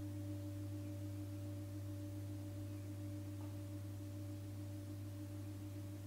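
A steady low hum made of several held tones, a strong low one with two fainter higher ones above it, slowly fading.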